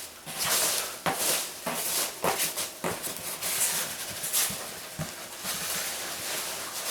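Hands rummaging through polystyrene packing peanuts in a cardboard box, an irregular rustling and crunching with scattered squeaks and clicks.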